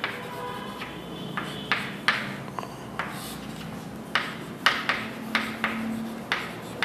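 Writing on a board: irregular sharp taps and short scratching strokes, about one or two a second.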